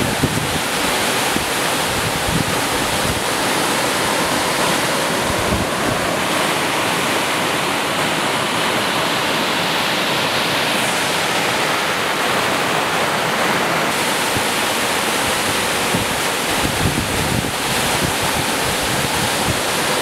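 Waterfall and the stream below it, white water rushing over rocks in a loud, steady rush. The tone shifts slightly a few times.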